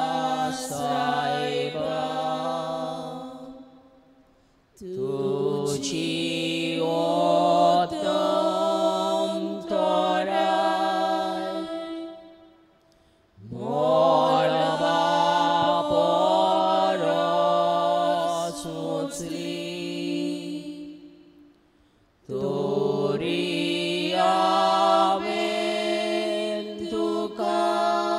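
A Konkani devotional hymn sung slowly in four long phrases, with brief pauses for breath between them.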